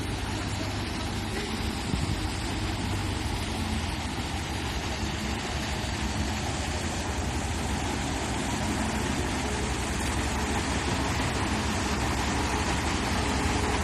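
Mobile crane's diesel engine running steadily, growing a little louder near the end.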